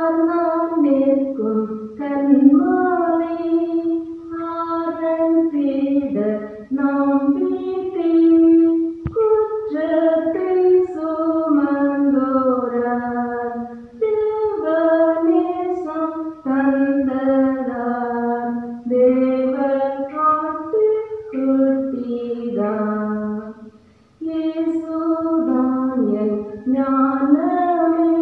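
A woman singing a Christian devotional song unaccompanied, in long held phrases with short breaks for breath. A brief click about nine seconds in.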